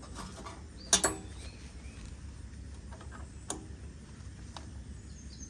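Metal parts clinking while a brush cutter blade, retaining plate and nut are fitted onto a string trimmer's gearhead: one sharp clink with a brief ring about a second in, another near the middle, and a few light ticks.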